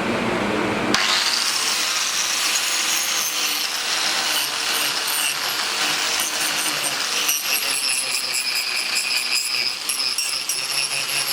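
Angle grinder carving into hard wood: a steady high motor whine over rough grinding noise, with scattered sharp clicks that come thicker in the second half. It takes over sharply from a lower, steadier hum about a second in.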